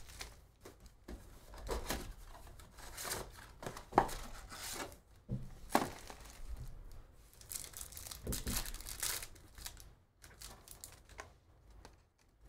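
Trading-card box and packs being handled: cardboard rustling, wrappers crinkling and a pack being torn open, in irregular crackly bursts with a sharp snap about four seconds in. It quietens near the end as the cards are taken out.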